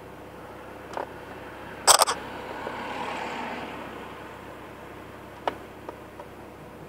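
Inside a stationary car: a cluster of sharp clicks and knocks about two seconds in, then a passing vehicle's noise that swells and fades over a couple of seconds, with a few lighter clicks near the end.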